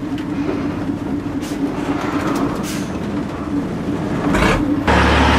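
An old bus's engine running with a steady drone while it drives over a rough, muddy road, with a few knocks and rattles. About five seconds in, the sound cuts abruptly to a louder, steadier hum.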